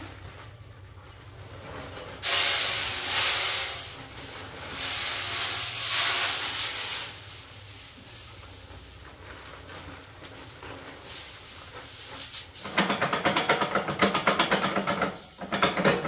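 Dry pelleted pig feed poured from a sack into a metal hopper feeder, a hissing rush in two spells. Later comes a fast, rattling crackle, loudest of all, as pigs eat at the feeder's pan and the feed is stirred by hand.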